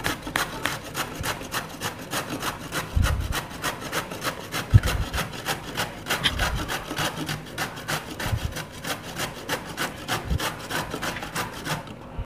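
Peeled bottle gourd grated by hand on a stainless-steel grater: steady back-and-forth rasping strokes, about three to four a second, with a few dull knocks in between.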